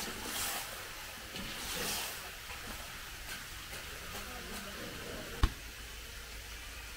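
Water splashing and draining off a wire-mesh strainer as it lifts blanched vegetables out of a wok of hot water, in two short bursts, with faint voices behind. A single sharp click about five and a half seconds in.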